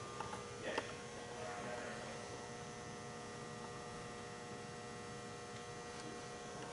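Steady, faint electrical hum with low room noise, and a couple of faint clicks in the first second.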